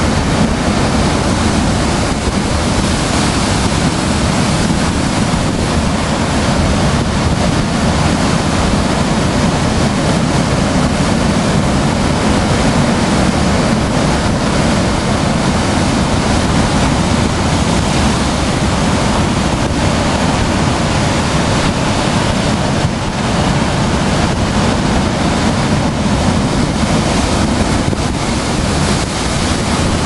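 Heavy storm waves breaking against stone sea ramparts, a loud, unbroken wash of surf, with wind buffeting the microphone.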